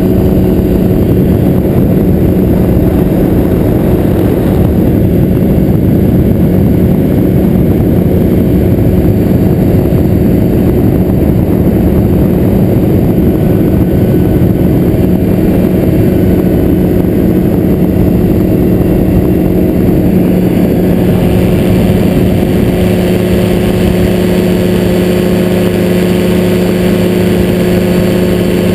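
Engine and propeller of a powered hang glider trike running steadily in flight, a loud even drone with a strong steady hum. About three quarters of the way through the sound turns slightly brighter.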